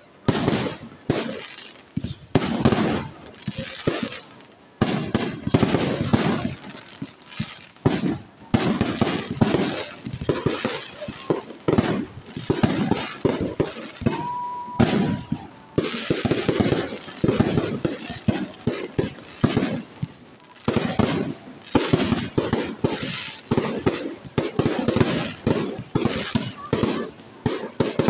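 Aerial fireworks shells bursting overhead: many bangs and crackles in quick, irregular succession.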